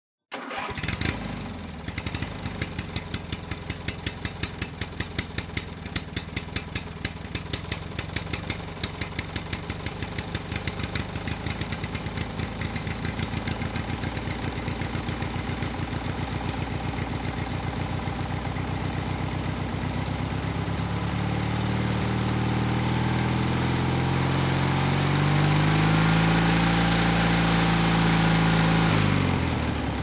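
An engine running with a regular beat that gradually quickens, then revving with pitch rising and falling over the last third, and winding down with a falling pitch near the end.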